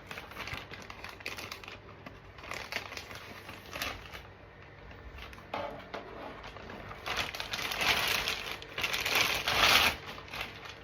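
Crinkling and rustling handling noise, with a few sharp clicks, loudest in a stretch about seven to ten seconds in.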